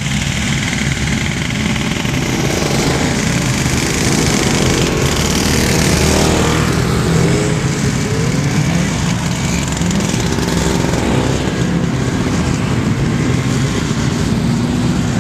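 Pack of vintage snowmobiles, many of them Scorpions, riding together with their two-stroke engines running, a dense mix of engine pitches that waver and shift as individual sleds pass.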